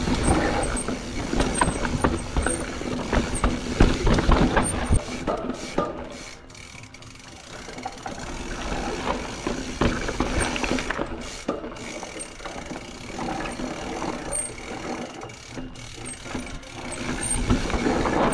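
Mountain bike clattering down a rocky trail: tyres knocking over rocks and roots while the chain and frame rattle, with the rear freehub ratcheting when coasting. The knocking is densest and loudest in the first few seconds, eases off for a couple of seconds, then builds again near the end.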